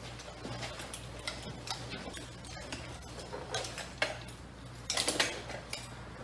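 Metal buckles and fittings of a firefighter's SCBA air-pack harness clinking and rattling as it is shrugged onto the back and the straps are adjusted, with a louder cluster of clinks about five seconds in. A faint steady hum lies underneath.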